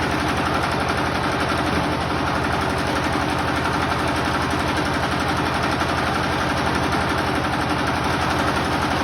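Generator engine running steadily, with a fast, even throb.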